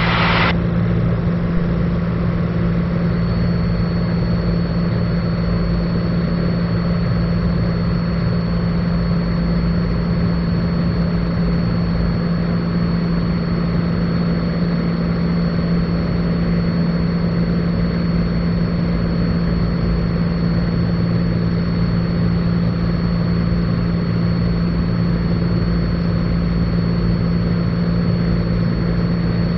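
Cessna 182 Skylane's piston engine and propeller droning steadily in cruise flight, heard inside the cabin. About three seconds in, a thin steady high whine joins the drone.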